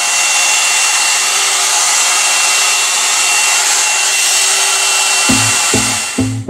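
Hair dryer running steadily: a loud rushing hiss with a thin high whine, cutting off at the end. Music with plucked bass notes comes in near the end.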